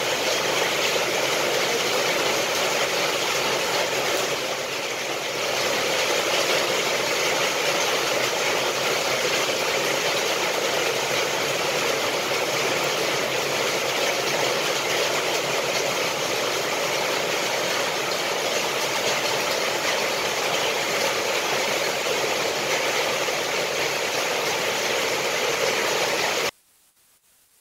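A loud, steady rushing noise with no rhythm or pitch, which cuts off abruptly near the end, leaving near silence.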